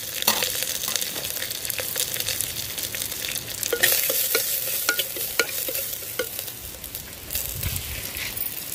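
Tempering sizzling in hot coconut oil in a pot: mustard seeds, dried red chillies, curry leaves and crushed garlic, cumin and pepper frying while a spoon stirs them. Several sharp clicks of the spoon against the pot come in the middle.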